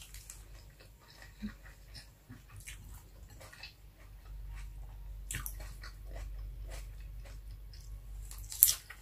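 Close-miked chewing and lip-smacking of someone eating by hand, with a scattering of short wet mouth clicks. A sharp smack near the end is the loudest sound.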